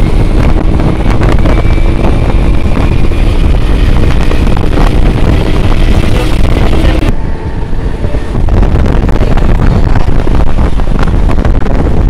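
Wind buffeting the microphone and road noise from riding in the open through traffic, with a faint steady hum. About seven seconds in the sound changes abruptly and dips for a moment.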